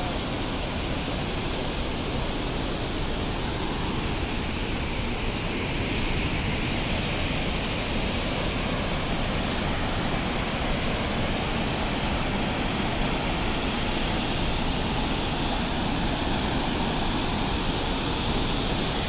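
Tar River pouring over a dam spillway and churning through rocky rapids: a steady rushing of water, a little louder from about six seconds in.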